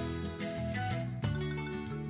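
Instrumental background music: plucked notes over held bass tones.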